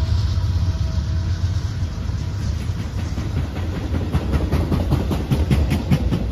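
Norfolk Southern intermodal freight train passing close by: the diesel locomotive's engine drone fades out in the first moment. It gives way to a heavy rumble of container and trailer cars and a rapid clatter of wheels over the rail joints, building from about two seconds in.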